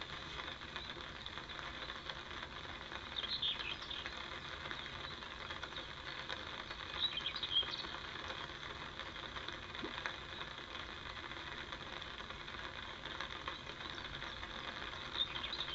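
Steady outdoor hiss, with a few brief high bird chirps a few seconds in, around the middle and near the end.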